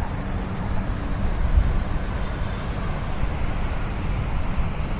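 Wind rumbling on the camera microphone over the steady wash of surf on a beach.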